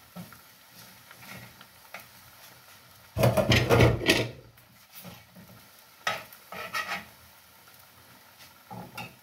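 Metal spatula stirring and scraping fried termites in a frying pan, with faint sizzling. A loud scrape about three seconds in and a few sharp clinks of the spatula on the pan a couple of seconds later.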